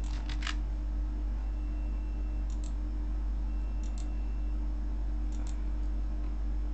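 Computer keyboard and mouse clicks as code is pasted and the cursor moved: a quick cluster of clicks at the start, then paired clicks about every second and a half. A steady low hum runs underneath.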